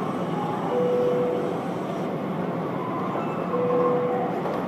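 Steady rumble of airport ramp noise, with a medium-pitched beep that repeats about every three seconds.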